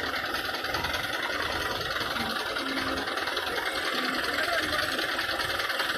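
A large engine idling steadily, an even mechanical rumble with no change in pace.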